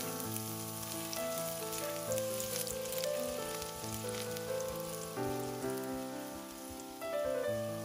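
Minced garlic sizzling and crackling in hot cooking oil in a wok, with background music of changing notes throughout.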